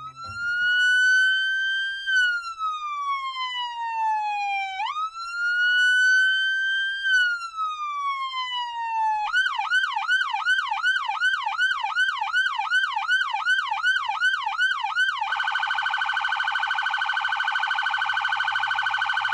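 Electronic police siren: two slow wails rising and falling, then switching to a fast yelp of about three cycles a second, and near the end to a steady, rapidly pulsing tone.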